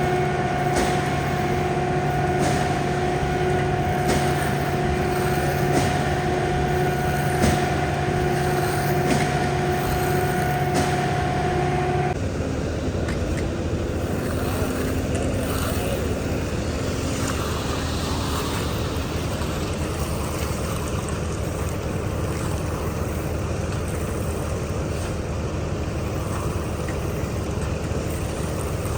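Heavy construction machinery engines running steadily on a concrete pour. About twelve seconds in the sound changes abruptly from a steady hum with a few held pitches to a rougher engine noise.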